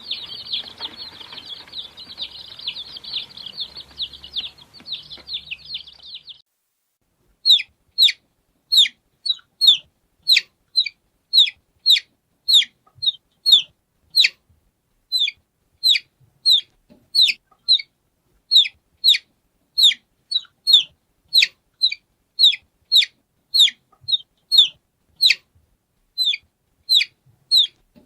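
Domestic chicks (baby chickens) peeping: first a brood peeping together in a dense overlapping chorus, then, after a brief silence about six seconds in, a single chick peeping loudly and steadily, each peep a short falling note, roughly two a second.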